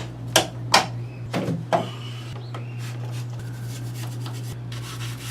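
About five short, sharp clicks or knocks in the first two seconds, then quieter handling noise over a steady low hum.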